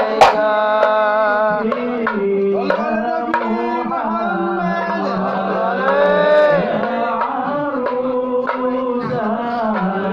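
Men singing a devotional song together for the Prophet's birthday, with a few scattered strikes on rebana frame drums; the drumming is heavier just before this and lighter while the voices carry the tune.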